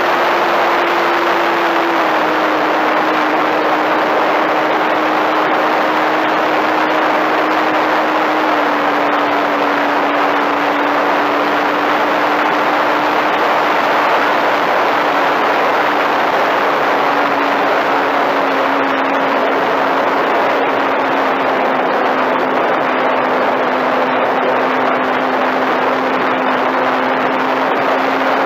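Onboard sound of a Flyzone Switch RC plane in flight: a loud, steady rush of air over the camera, with the electric motor and propeller humming underneath. The hum steps down in pitch three times as the throttle is eased.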